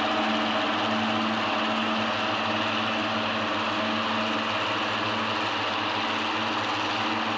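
Diesel engine of NSWGR power car DP 101 idling steadily, a constant low hum with a hiss over it.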